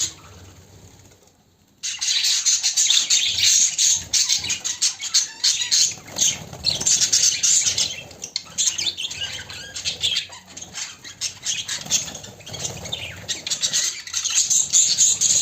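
Budgerigars chattering and chirping in a dense, busy stream that starts about two seconds in.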